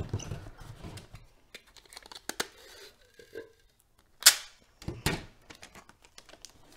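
Packing tape pulled off the roll and torn, among taps and rustles of a cardboard box being handled; the loudest is a short tearing rasp about four seconds in.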